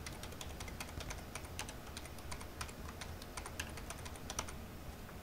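Computer keyboard typing: faint, irregular keystrokes as a short phrase is typed, stopping shortly before the end.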